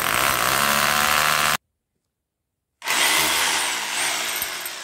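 Cordless drill with a masonry bit boring into the mortar joint at the base of a brick wall, running in two stretches split by about a second of silence. The second stretch winds down and fades near the end.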